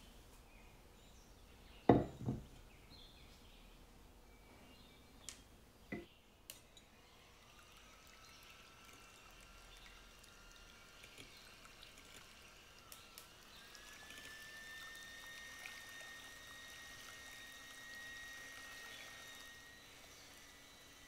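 Two knocks about two seconds in, the glass mixing bowl set down on the wooden table, then a few light clicks. From about seven seconds an electric hand mixer runs with a faint steady whine, its beaters whipping egg whites to a froth; the whine rises in pitch around thirteen seconds as the mixer speeds up.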